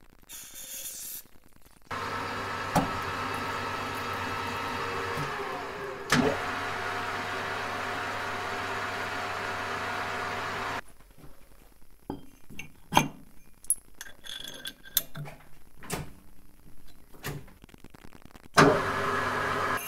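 Metal lathe starting about two seconds in and running with a steady hum. It then stops, and a string of sharp metal clicks and clunks follows as the motorcycle brake hub is handled and fitted to the arbor. The lathe starts again, loudly, near the end.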